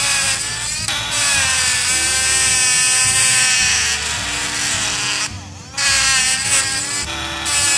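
Cheap electric engraving pen buzzing as its vibrating tip cuts into a plastic cutter handle, its pitch wavering up and down with the pressure. The buzz breaks off briefly about half a second in and again a little past five seconds.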